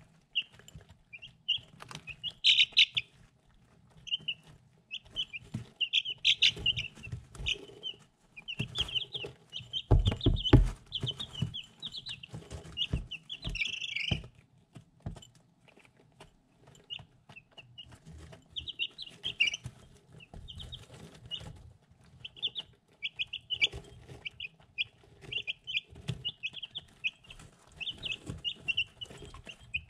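Three-week-old chicks peeping in short, high chirps again and again as they peck at feed in a ceramic dish, with small tapping and rustling underneath. A run of louder low thumps comes about ten seconds in.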